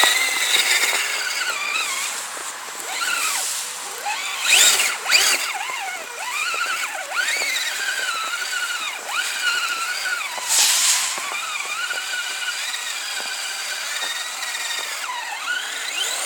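Electric motor of a radio-controlled Kyosho Blizzard tracked snow vehicle whining as it is driven, its pitch rising and falling with the throttle. Two brief louder hissing bursts come about five and eleven seconds in.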